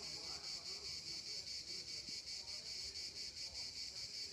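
Cicadas shrilling in a steady, high-pitched chorus that pulses evenly several times a second.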